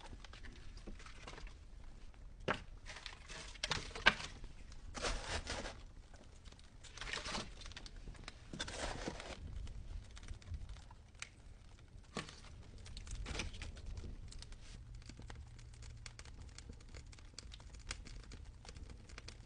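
Leaves being crumpled and crushed by hand, in irregular crinkling, crunching bursts with a sharp crackle about four seconds in.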